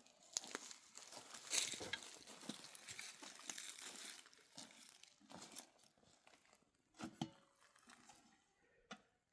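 Rustling and crinkling with many small clicks, busiest and loudest in the first half, then thinning to scattered clicks and a single knock about seven seconds in.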